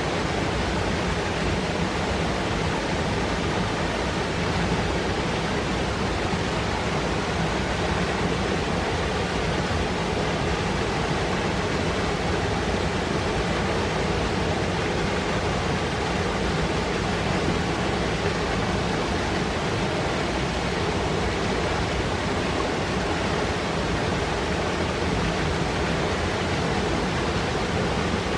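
Fast mountain river rushing and foaming over rocks, a steady, full, unbroken rush of water.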